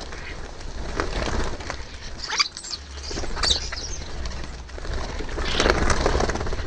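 Common starlings flapping their wings and scuffling as they jostle over a ground feeder: irregular bursts of wingbeats, busiest and loudest near the end.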